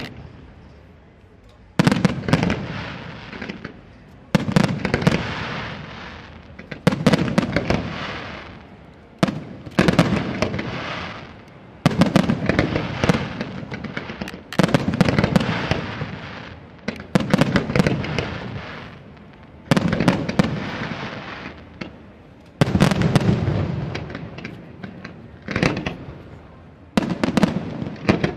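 Aerial fireworks display: a steady sequence of salvos of shells bursting, a new volley about every two and a half seconds. Each volley starts with several sharp bangs and fades out over a couple of seconds.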